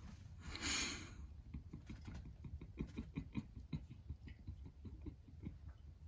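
Salt being sprinkled by hand from a height: a short breathy hiss about half a second in, then many faint, irregular ticks of grains landing on the plate and table.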